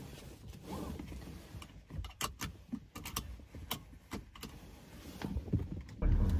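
Irregular sharp clicks and rustling of someone handling things inside a car cabin, over a low rumble. About six seconds in, a louder steady low hum comes in.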